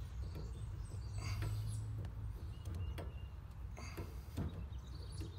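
Faint scattered clicks and light metallic ticks as a Schrader valve core removal tool is turned by hand on an air conditioner's brass service port, loosening the leaking valve core, over a steady low hum.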